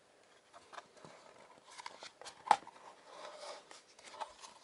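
Handling noise from the plastic housing of a Svarog C601G laser level: small clicks and rubs as its battery compartment cover is worked open, with one sharper click about two and a half seconds in.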